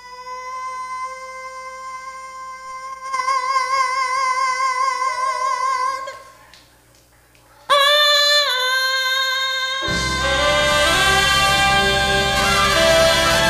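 A female soul/jazz vocalist holds one long sung note that swells and takes on vibrato, breaking off about six seconds in. After a brief pause she comes in again on a new note, and a full backing band with bass joins her about ten seconds in.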